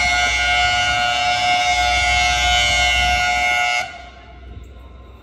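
Diesel locomotive air horn sounding one long, steady blast as the train approaches, cutting off sharply about four seconds in; a low rumble of the oncoming train is left after it.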